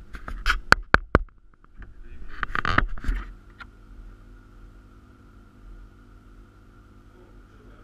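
Sharp clicks and knocks of a hand handling the camera on its mount, then a short rustling scrape about two seconds in. After that only a faint steady electrical hum remains.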